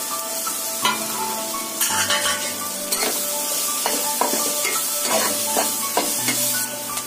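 Shredded cabbage and mixed vegetables sizzling in a nonstick kadhai while a steel spatula stirs and tosses them, with repeated short scraping strokes against the pan.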